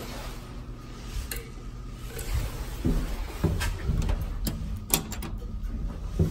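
Push buttons on an early Mitsubishi Elepet elevator car's operating panel clicking as they are pressed, with a quick run of sharp clicks about five seconds in, over a steady low hum and a few soft knocks.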